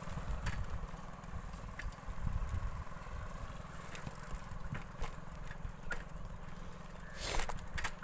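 Wind buffeting the microphone while moving fast along a road: a steady fluttering rumble, with scattered light clicks and a louder rush of noise near the end.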